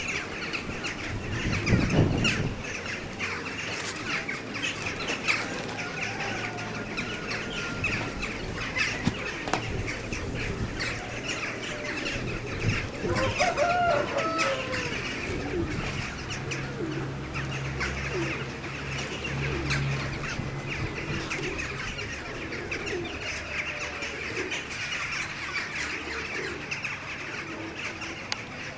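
Farmyard birds: small birds chirping and poultry calling on and off, with a low hum coming and going underneath.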